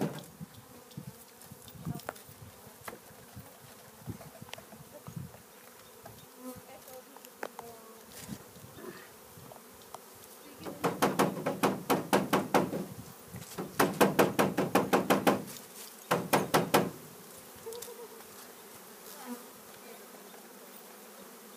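Honeybees buzzing around an open hive during package installation. Past the middle come three bursts of fast, even rattling knocks, typical of a package of bees being banged and shaken to knock the bees down into the hive.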